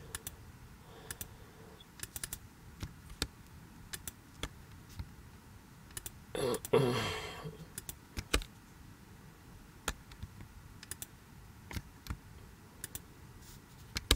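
Scattered, irregular clicks of a computer mouse and keyboard keys as polygons are clicked and selected with shift and control held. A brief falling vocal sound comes about six and a half seconds in.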